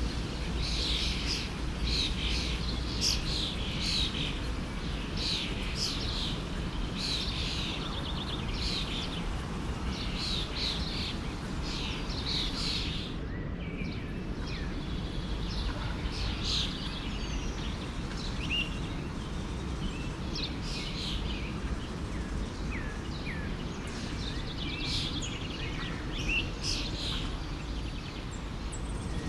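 Many small birds chirping and singing over the steady rush of a flowing forest stream. The calls come thick and fast at first, break off briefly about halfway through, then return more sparsely.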